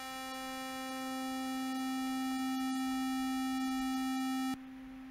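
MOS 6581 SID chip playing a steady square-wave tone through its analog high-pass filter as the cutoff frequency is swept down, so the tone gradually grows fuller and louder. About four and a half seconds in, the upper overtones suddenly drop away and the tone turns quieter and duller.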